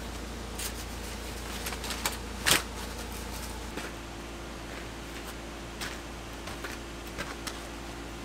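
Scattered clicks and knocks of a folding metal stand and a portable camping fan being unfolded and fitted together by hand, the loudest knock about two and a half seconds in, over a steady low hum.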